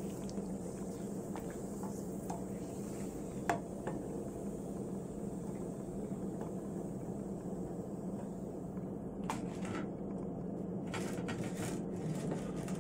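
Krupuk cracker frying in a pot of oil and being lifted out with a metal skimmer: a steady low hum with a few light clicks of the skimmer against the pot, then a cluster of sharp crackles and clicks in the last few seconds.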